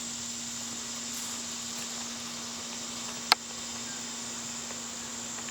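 Steady high-pitched chirring of crickets, with a low steady hum beneath it. A single sharp click about three seconds in.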